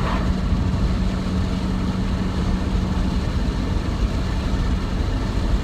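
Steady low rumbling noise of wind and surf, with a faint steady hum through roughly the first half that stops about three seconds in.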